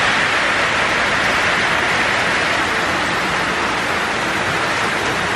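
Rain falling steadily: a loud, even hiss with no break.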